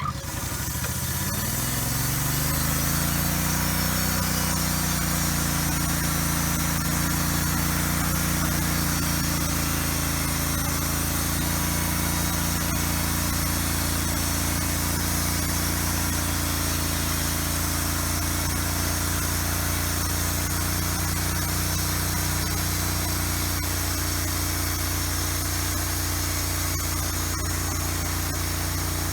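Sawmill machinery spinning up, its pitch rising over the first few seconds, then running steadily at full speed.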